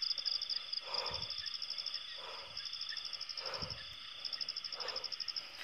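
Night insects, crickets, chirping in a steady, fast-pulsing high trill. A few soft rustles or steps come about every second and a bit.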